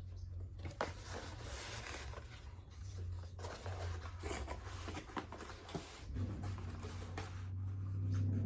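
A cardboard box being torn open and its packaging handled: rustling and scraping with scattered small clicks. A steady low hum runs underneath.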